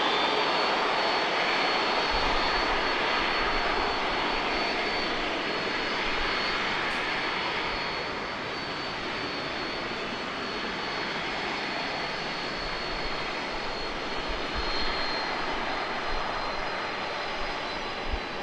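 Boeing 767-400ER's twin jet engines running as the airliner taxis: a steady rushing noise with a thin high whine, easing slightly about eight seconds in.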